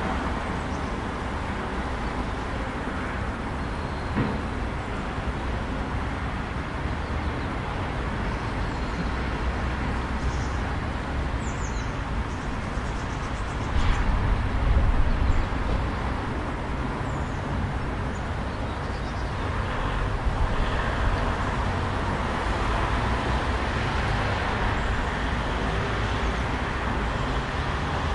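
City street ambience: a steady rumble and hiss of road traffic. The noise swells louder for a second or two about halfway through.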